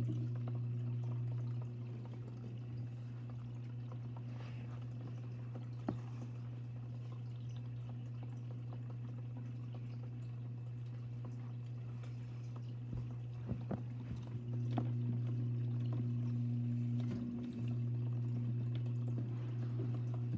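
Steady low hum with a few faint clicks now and then; the hum grows a little louder about three-quarters of the way through.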